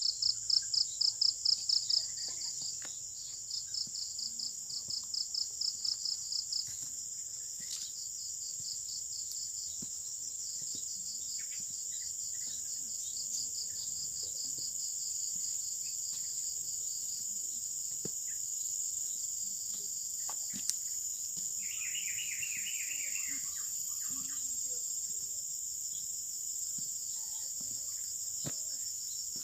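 Insects calling: a steady high-pitched trill, with a rapid pulsing chirp of about six pulses a second that comes in twice during the first few seconds. A brief run of lower chirps comes in about three-quarters of the way through.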